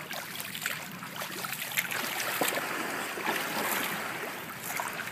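Pool water splashing and sloshing as bottlenose dolphins bob at the surface, a steady watery hiss with scattered small splashes.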